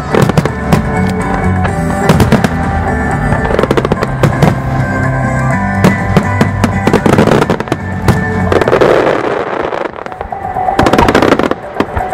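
Firework shells bursting and crackling in quick succession over loud music, the bangs coming thick and fast with a dense run of them near the end.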